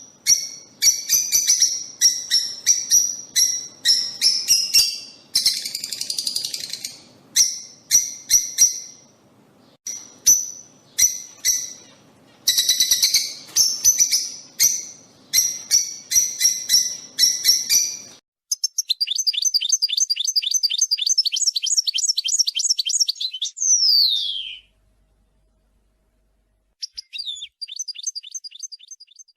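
Lovebirds calling: a rapid run of sharp, high chirps, then after an abrupt change a fast chattering trill that ends in a falling whistle. After a short pause, fainter chirps come near the end.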